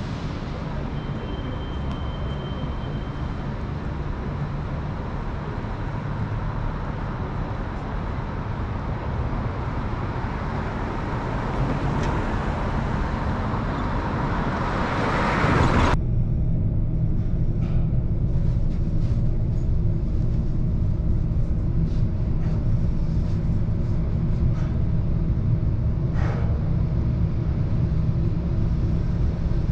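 City street traffic: a steady wash of passing vehicles that builds to a loud hiss about halfway through. It then changes abruptly to a steady low rumble with a faint hum.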